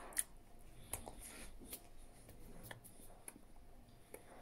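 Faint rustling and a handful of soft, scattered clicks from a person signing: hands brushing and touching each other and the body, and clothing moving.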